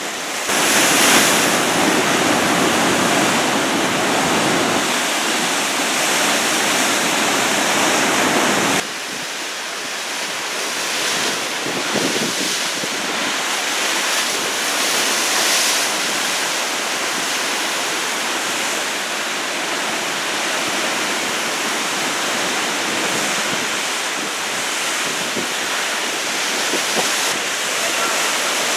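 Large typhoon-swell surf breaking and rushing, a steady roar of water noise with wind on the microphone. It drops abruptly in level about nine seconds in, then carries on steadily.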